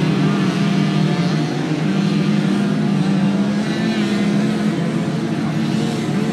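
Several small 50 cc two-stroke moped engines running together, their pitches overlapping and wavering up and down.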